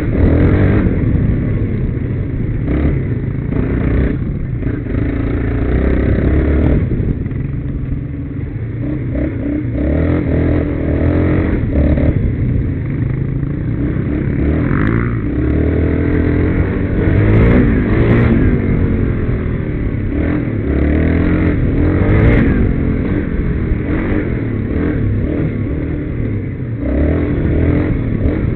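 Quad bike (ATV) engine heard on board while riding a rough dirt trail, its pitch rising and falling with the throttle. Knocks and rattles from the bumpy ground come through now and then.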